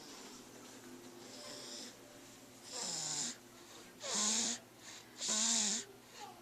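A sleeping pet snoring: faint snoring at first, then three loud snores a little over a second apart in the second half.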